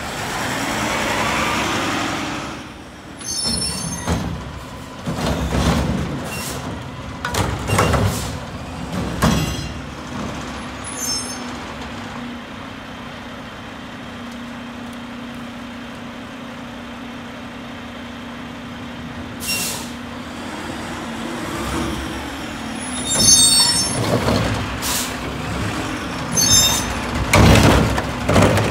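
Mack LR garbage truck working a Curotto Can arm: the diesel engine and hydraulics running while carts are grabbed and dumped, with repeated clanks and bangs and a few short sharp hisses of air. A steady hum carries a quieter stretch in the middle before the banging picks up again near the end.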